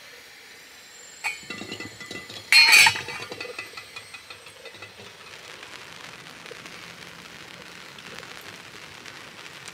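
Stainless steel saucepan and lid clinking on a gas hob: a small click about a second in, then a louder ringing clink near three seconds in. After that, a steady patter of rain.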